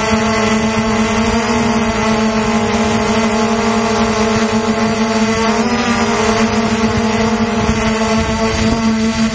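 F450 quadcopter's motors and propellers buzzing steadily at a high, even pitch, heard close from the camera mounted on the drone, with a brief dip in pitch about five and a half seconds in.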